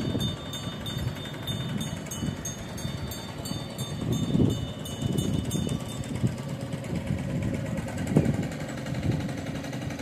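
Wind buffeting the microphone: a low, gusty rumble that swells and falls, with stronger gusts about four and eight seconds in.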